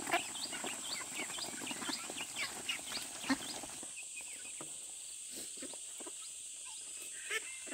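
A flock of young ducks feeding together: a dense chatter of short, high, falling peeps and pecking clicks that thins out about four seconds in to scattered calls, some of them lower-pitched, over a steady high hiss.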